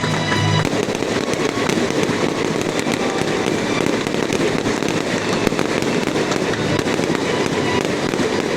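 Aerial fireworks bursting and crackling in a dense, continuous barrage, with music playing underneath that is clearest in the first half-second.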